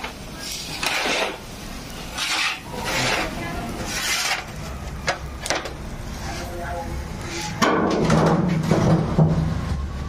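Metal kebab skewers of chicken drumsticks scraping against the charcoal grill's metal rails as they are turned and shifted, in repeated short rasps with a couple of sharp clicks. A louder, denser stretch of noise begins near the end.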